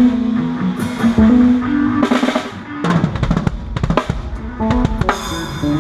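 Drum kit played with a band: bass drum and snare strokes over sustained pitched instrument notes, with a quick drum fill about three seconds in.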